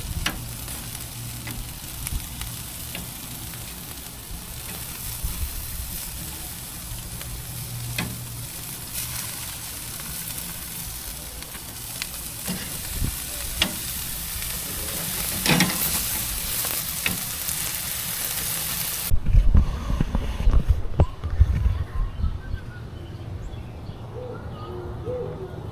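Meat sizzling on a charcoal grill: a steady hiss with scattered small pops. About nineteen seconds in, the sizzle cuts off suddenly and low rumbling knocks take over.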